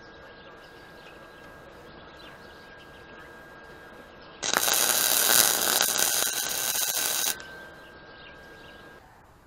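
Wire-feed welder arc, one loud burst of about three seconds starting about halfway through and cutting off suddenly, welding steel chain links together.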